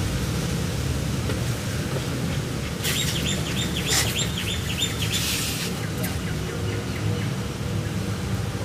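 A small bird chirping a quick series of short high notes for about two seconds, starting about three seconds in, over a steady low rumble and hiss of outdoor background.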